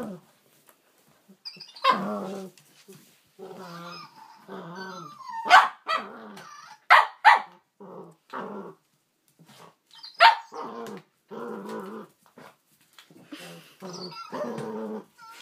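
A Cavalier King Charles spaniel growling in play over a toy, in short repeated bursts, with a few sharp barks in the middle.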